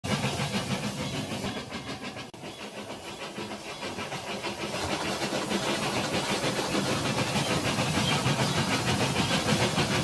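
Steam-locomotive chuffing: a rhythmic hiss of about five chuffs a second, growing louder about halfway through, with a brief break a little after two seconds.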